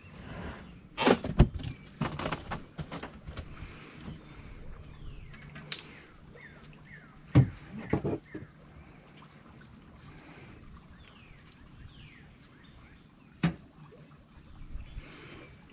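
A few hollow knocks and clunks from gear being handled in an aluminum boat: two loud ones about a second in, a pair about halfway through and one more near the end. Birds chirp in the background.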